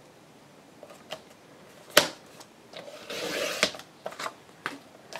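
Paper and craft tools handled on a work table: a sharp tap about two seconds in, a scraping rush lasting about a second, and a few light clicks.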